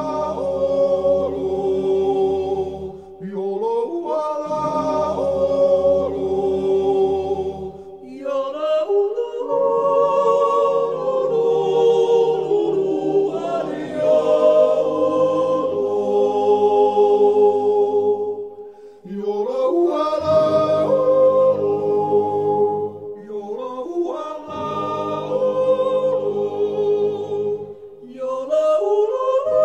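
Swiss yodel choir singing the wordless yodel refrain of a Jodellied in several parts. The voices hold chords in phrases of about four to six seconds, each starting with a short upward slide, with brief breaks between them.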